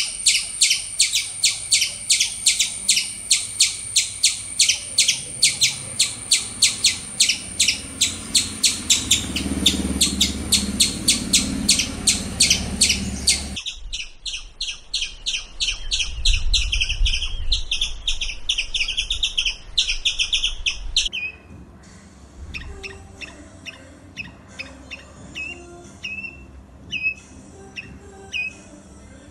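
Squirrel calls: a fast, even series of high chirps, about four a second. About halfway through it cuts to a different recording of rapid chirping that thins out, near the end, to single squeaky chirps about once a second.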